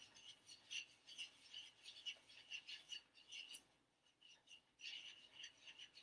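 A utensil scraping around a saucepan as a thick, hot syrup of honey, butter and brown sugar is stirred: faint, quick scrapes about three a second, with a short pause a little past the middle.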